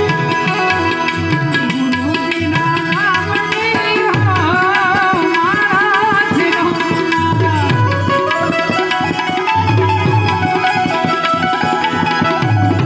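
Harmonium and tabla playing a devotional dhun. The harmonium holds sustained chords and melody over steady, rhythmic tabla strokes, and a wavering melodic line rises above them in the middle.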